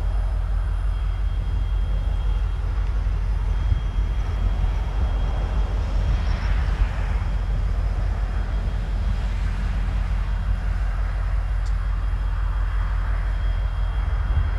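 Diesel freight locomotives running: a steady low rumble that holds at an even level.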